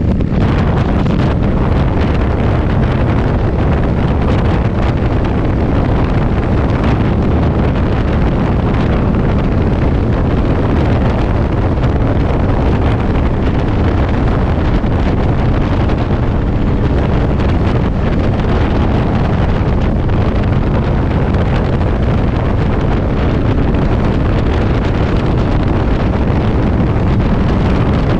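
Strong wind buffeting the microphone on a moving Yamaha V-Star motorcycle, with the bike's V-twin engine running steadily underneath at cruising speed.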